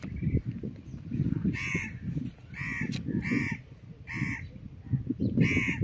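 A crow cawing five times, roughly once a second, over a low rumble.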